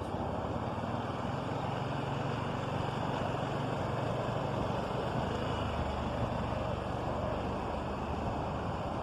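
A motor vehicle's engine running steadily, a low hum under a broad noisy rush.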